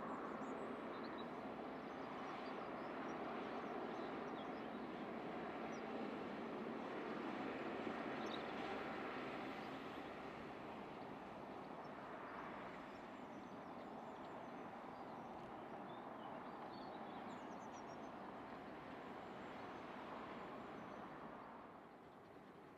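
Narrow-gauge steam train running at a distance, a faint rushing sound that swells and then fades, dropping away near the end, with small birds chirping.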